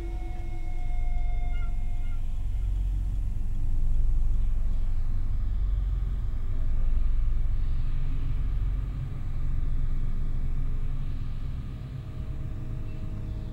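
A deep rumble that swells and eases in slow waves, peaking about every three seconds.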